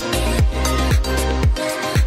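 Background music with a steady beat: a deep kick drum about twice a second, with hi-hat ticks and held synth notes.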